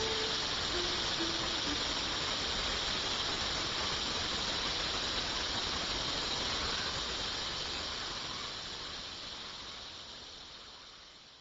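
Steady high-pitched hissing noise in the song's outro, with no voice or melody over it, fading out over the last few seconds.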